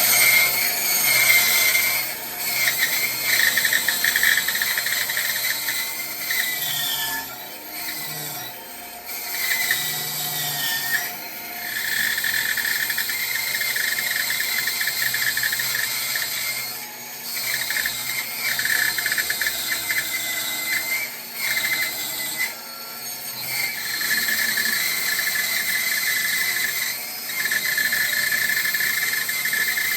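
Bandsaw cutting a curved scroll into a wooden block: a steady high whine with hiss, its pitch wavering as the wood is fed, dipping briefly several times where the cut eases off.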